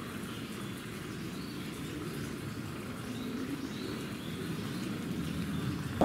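Outdoor ambience: a steady low rumble that slowly grows louder, with a few faint bird chirps high above it.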